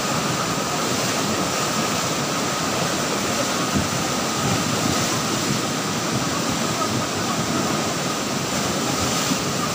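Torrent of brown, muddy floodwater rushing past in a steady, dense rush.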